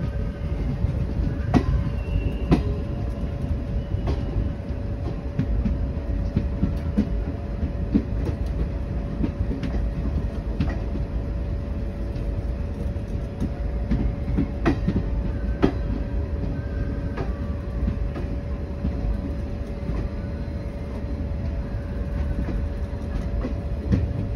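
Express train with ICF coaches running along the track: a steady rumble and a steady hum, with occasional sharp clicks and knocks from the wheels.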